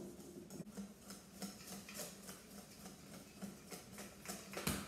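Whisk beating batter in a stainless steel bowl: faint, regular ticks of the wires against the metal, about three a second, with one louder knock near the end.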